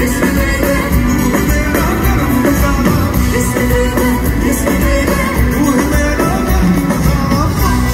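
Loud live concert music over a hall PA: a band playing with a singer's voice on top.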